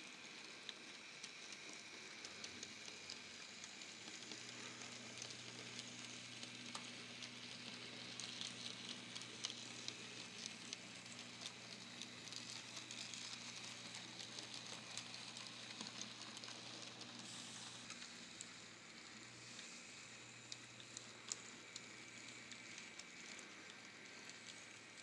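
Faint crackling and clicking of N scale model trains running on the layout's track, with a low steady hum from about four seconds in until near the end.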